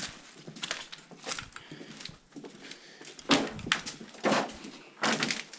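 Footsteps crunching and scraping over debris and rubble on a floor, an irregular run of short crunches with several louder ones in the second half.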